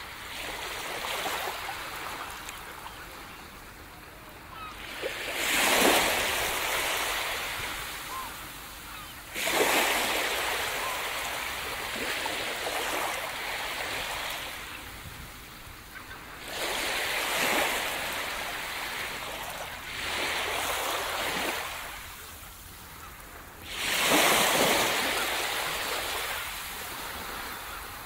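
Small waves breaking and washing up a sand beach. The surf swells in a loud rush about every four seconds and fades back between waves.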